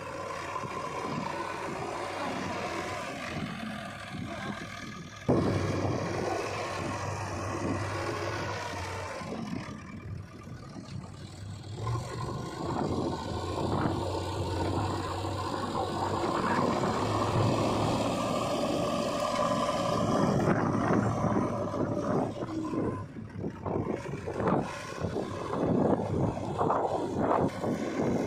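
Diesel engines of a backhoe loader and tractors running while mud is loaded. The sound gets suddenly louder about five seconds in, and irregular knocks come through in the last few seconds.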